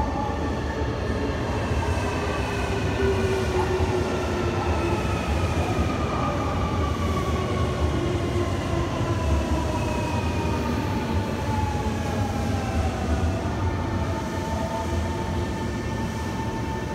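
Electric train braking: the motors' whine, in several tones, falls slowly in pitch over a steady low rumble as the train slows. Near the end the whine settles into a steadier tone.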